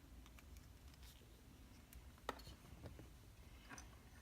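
Near silence: quiet room tone with a few faint, short clicks, one a little over two seconds in and a couple more just after.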